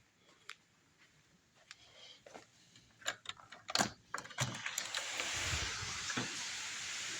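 A few clicks and knocks as a door is unlatched and opened, then the steady hiss of heavy rain from about five seconds in.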